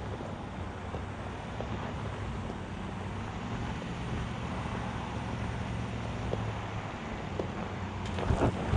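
2022 Chevrolet Silverado ZR2's 6.2-litre V8 running low and steady as the truck crawls up a rocky trail. Near the end, crunching and knocking from the tyres on loose rock begins and grows louder as it comes closer.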